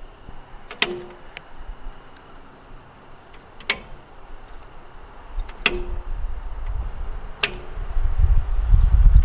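Sharp clicks every two seconds or so, some with a short low ring after them, over a steady high insect chirring; a low rumble builds over the last few seconds and becomes the loudest sound.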